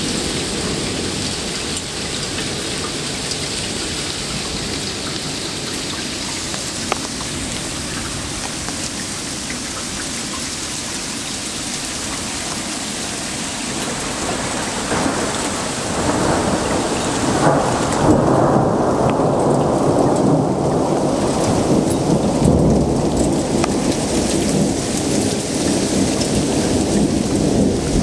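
Heavy rain falling steadily in a thunderstorm; about halfway through, a long low rumble of thunder builds up and keeps rolling under the rain.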